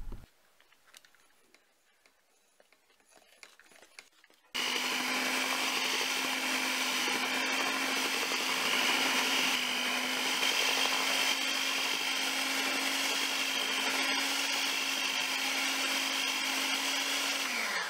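Electric hand mixer with twin wire beaters beating thick cake batter after the flour has been added, a steady motor whine. It starts suddenly about four and a half seconds in and cuts off just before the end.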